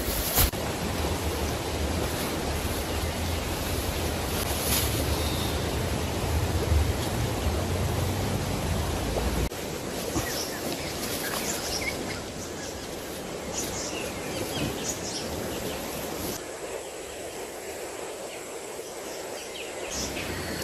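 Steady rushing outdoor noise with a heavy low rumble through the first half that drops off abruptly about halfway in. Faint rustles and clicks of a fabric picnic mat being spread out and plastic pegs being handled sit on top.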